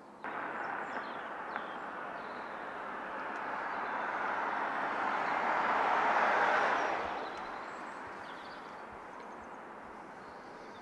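A passing vehicle, its noise swelling to its loudest about six seconds in and then fading away.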